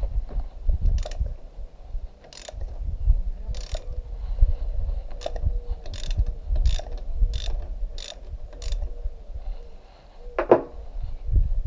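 Ratchet wrench loosening a motorcycle's fork yoke pinch bolts: a run of short ratcheting clicks, one burst on each back-swing a little under a second apart, with knocks from handling the fork. Near the end comes one short squeak falling in pitch.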